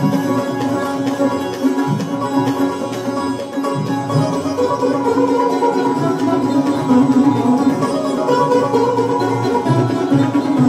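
Sitar and sarod playing together in North Indian classical music: plucked melody lines over a steady drone note, with tabla strokes keeping time underneath.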